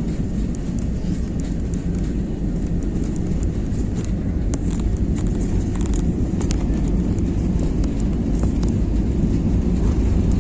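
Airliner's steady low rumble, with scattered sharp clicks and rattles over it.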